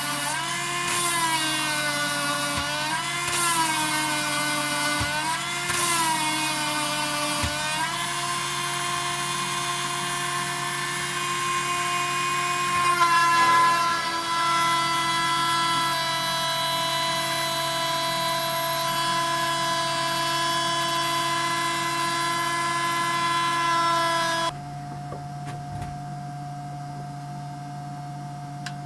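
Parkside Dremel-type rotary tool running a 1.5 mm solid diamond drill bit into an agate pebble, with a high whine. For the first eight seconds its pitch dips and recovers every couple of seconds, then it holds steady. About 25 seconds in the whine drops away to a much quieter steady hum.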